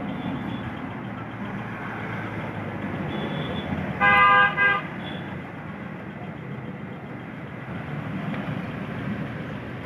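A vehicle horn honks twice about four seconds in, a half-second toot followed by a short one, over a steady hum of street traffic.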